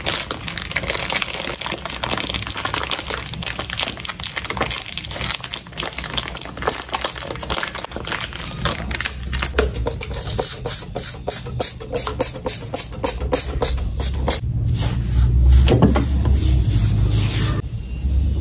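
A plastic bag crinkling as it is folded and rolled shut, then a trigger spray bottle spritzing the countertop several times about ten seconds in.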